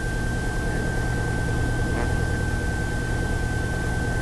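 Piper Archer's piston engine idling, heard through the cockpit intercom feed as a steady low hum with hiss, with a thin steady high-pitched whine running through it.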